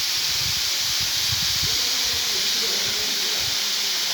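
Waterfall rushing steadily: an even, hissing roar of falling water from a fall that is down to two active streams in the dry season. A low irregular rumble sits under it for the first three seconds or so.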